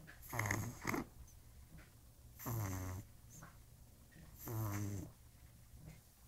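A 55-day-old pug puppy snoring in its sleep: three pitched, rasping snores about two seconds apart, the first with a short second catch at its end.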